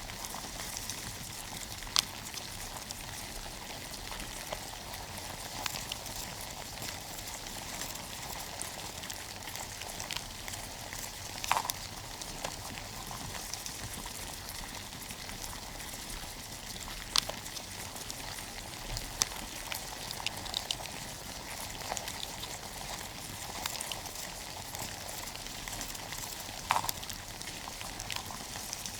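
Many small cockroaches moving about inside a box: a steady fine scratching crackle, with a sharper click every several seconds.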